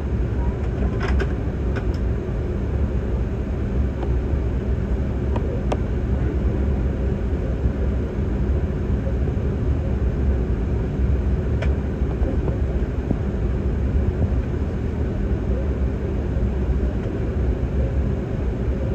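Cabin noise of an Embraer E175 jet taxiing: a steady low rumble and hum from the engines and the rolling airframe, with a few faint clicks.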